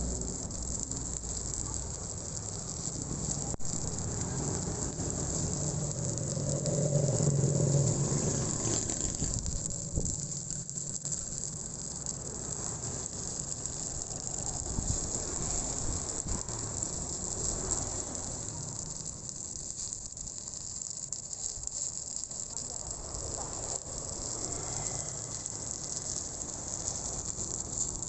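Stick-welding arc crackling and sizzling steadily as the electrode burns. A low hum sits underneath for the first several seconds.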